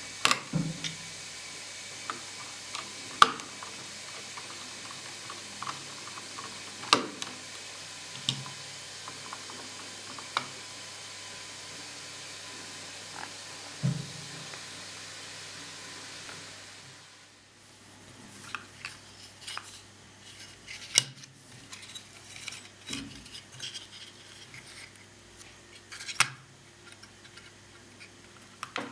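Light clicks and clatter of small metal and plastic laptop parts being handled as the cooling fan and heatsink assembly are taken apart. A steady hiss runs under the first two-thirds and then stops, leaving only the clicks.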